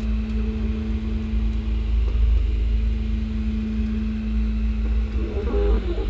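Original Prusa i3 MK3S 3D printer printing, its X and Y axis stepper motors humming at one steady pitch through a long move, the pitch shifting slightly about two seconds in. A steady low rumble runs underneath.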